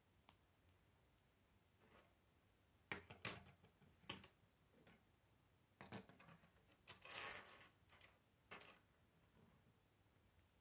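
Faint scattered clicks and taps of K'nex plastic pieces being snapped together and set down on a wooden table. There is a cluster of clicks about three to four seconds in and a short rattle around seven seconds.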